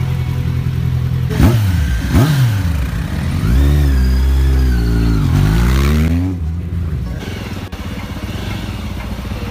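Kawasaki Ninja 1000's inline-four engine being blipped twice in quick succession, then revved and held with the pitch rising and falling, before dropping back to a lower running sound about six seconds in.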